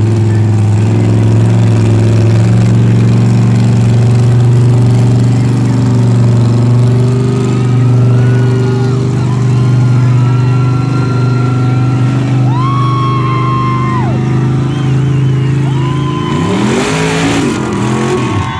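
Big lifted mud trucks' engines held at high revs under full load, a loud steady drone at one pitch, as the two trucks pull against each other. Near the end the engines drop off with a falling pitch amid a brief rush of noise, and high shouts from the crowd ring out over the drone in the second half.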